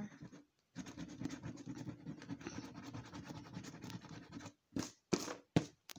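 A coin scraping the scratch-off coating from a lottery scratchcard, rubbing back and forth quickly for about four seconds, then three short separate scrapes near the end.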